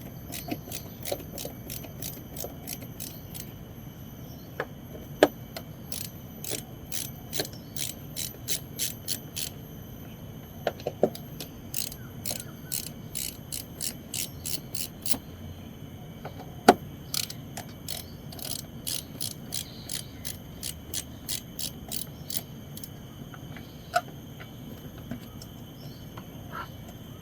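Ratchet tool clicking in runs of quick, even clicks as Torx screws on the air filter box cover are turned out, with a few louder single knocks.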